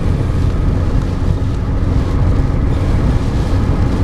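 Inside a moving car in a heavy rainstorm: a steady low road rumble with the hiss of rain over it, which sounds like static.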